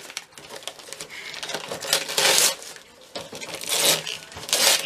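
Gift-wrapping paper being torn and crinkled by hand as a small present is unwrapped, in several short noisy bursts.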